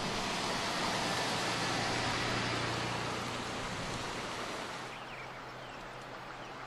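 Steady outdoor rushing noise that fades and thins out about two-thirds of the way through, leaving a quieter background with a few faint short chirps.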